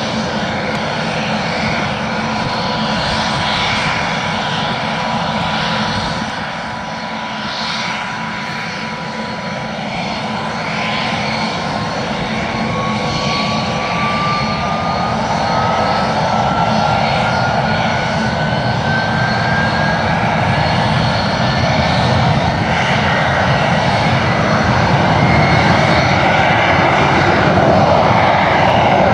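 Saab 29 Tunnan's single turbojet running as the jet taxis. Its whine climbs steadily in pitch from about a third of the way in, then holds high as the engine grows louder toward the end.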